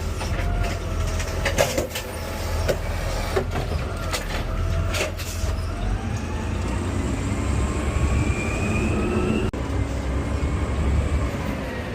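Garbage truck running steadily with a deep rumble. Several sharp knocks and bangs come in the first five seconds, then a whine rises in pitch from about halfway through.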